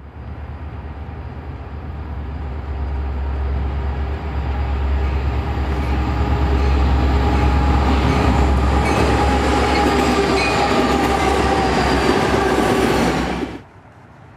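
Diesel freight locomotives running close by, a deep engine rumble that grows steadily louder, with steady higher tones joining over it in the second half. The sound cuts off suddenly near the end, leaving only a faint hush.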